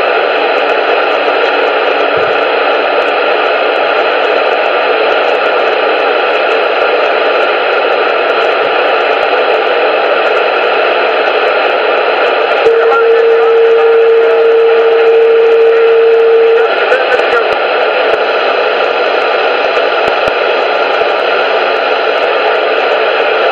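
Steady, loud static hiss, with a single steady mid-pitched tone sounding over it for about four seconds near the middle.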